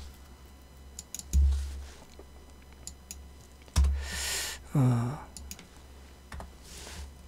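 Scattered clicks of typing on a computer keyboard, with a couple of low thuds. About four seconds in there is a breath, then a short hummed voice sound.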